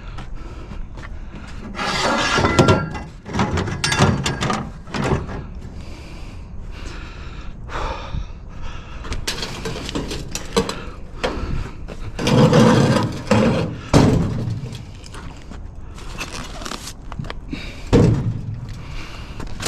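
Irregular knocking, clattering and a few heavy thuds of scrap metal and junk being handled, loudest about two seconds in, around twelve to fourteen seconds, and near the end.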